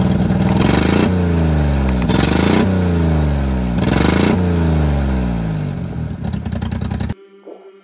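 Daihatsu Hijet pickup's small engine running and revved three times, the pitch falling back toward idle after each rev. It cuts off suddenly about seven seconds in.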